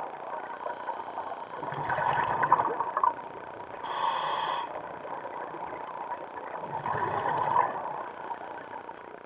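Scuba breathing through a regulator underwater: a rush of exhaled bubbles about two seconds in, a short hiss of inhalation around four seconds, and another burst of exhaled bubbles around seven seconds.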